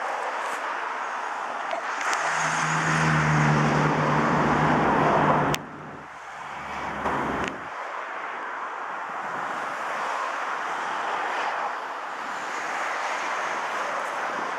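A motor vehicle's engine running close by over steady rushing wind and road noise. It grows louder about two seconds in and cuts off suddenly about halfway through, and after that only the steady rushing remains.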